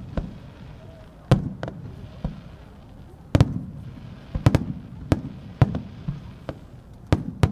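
Aerial firework shells bursting with sharp bangs, about a dozen at irregular intervals, some in quick pairs.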